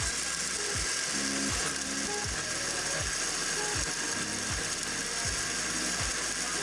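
Electric blender motor running steadily, blending papaya smoothie, with a repeating mechanical clack about every three-quarters of a second.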